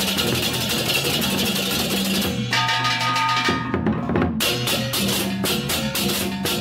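Background music with a drum beat; about two and a half seconds in the drums drop out for a second of held notes, then the beat comes back.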